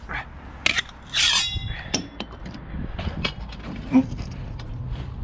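Tools being handled: scattered knocks and clicks, with a scraping metallic rasp and a brief ringing about a second in.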